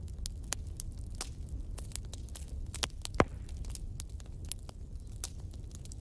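Wood fire burning in a fireplace on fresh and old, damp logs, crackling with irregular sharp pops, the loudest about three seconds in, over a low steady rumble.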